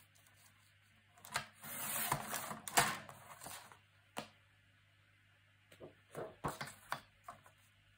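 Sliding paper trimmer cutting a sheet of printed paper: a scratchy hiss as the blade runs along for about two seconds, with a sharp click. Light clicks and rustles of the paper being handled follow near the end.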